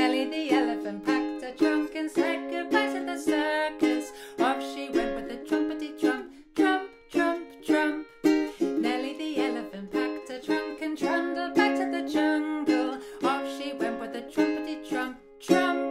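Ukulele strummed in a steady rhythm, with a woman singing along to the chords.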